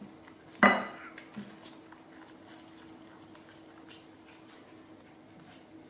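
A single sharp clink of a plate, ringing briefly, about half a second in, followed by faint small clicks of eating over a steady low hum.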